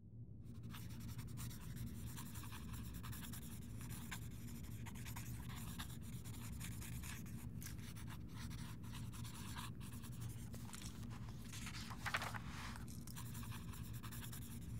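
Pen scratching across notebook paper in quick, uneven strokes, with one stronger stroke near the end, over a steady low room hum.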